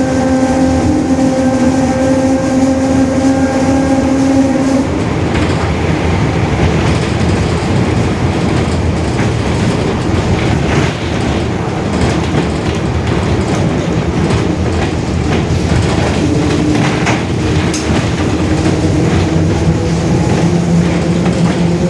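Mercedes-Benz OF-1721 city bus on the move, its rear differential howling very loudly: a steady whine that cuts off about five seconds in, then comes back and rises slowly in pitch near the end. Road noise and scattered knocks and rattles run underneath.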